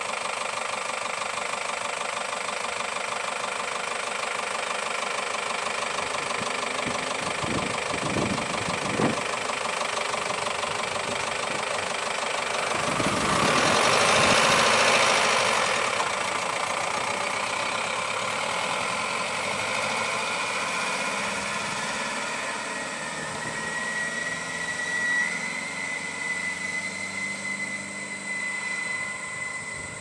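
Engines of stopped light trucks idling steadily, with a louder swell of engine noise about halfway through that rises and fades like a vehicle passing.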